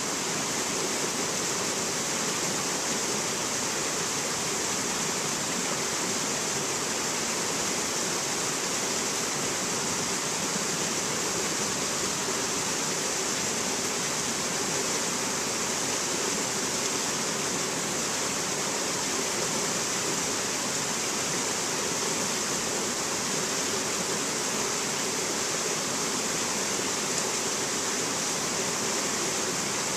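Rocky mountain stream rushing and splashing over boulders in small cascades: a steady, even, hissing rush of water.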